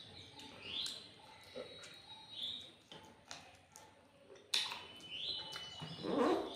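Close-up eating sounds: chewing and wet mouth smacks in a run of short clicks, with a sharp louder smack about four and a half seconds in and a louder, fuller mouthful sound near the end.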